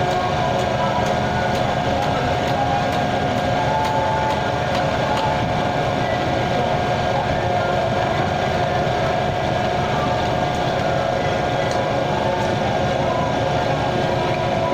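Heavy machinery engine running steadily: a constant drone with a steady whine, and no separate strikes.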